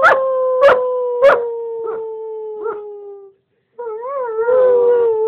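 A German shepherd and a person howling together: one long howl with a slowly falling pitch, broken by short sharp yips about every half second, a brief pause, then a second howl starting about four seconds in.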